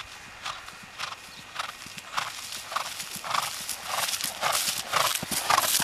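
A ridden horse cantering across grass: a regular beat of strides about twice a second, growing louder as it comes closer.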